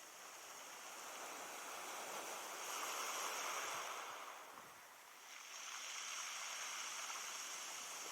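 Faint surf on a sandy beach: a wave swells to a peak about three seconds in, eases off near five seconds, and a second wash of surf follows.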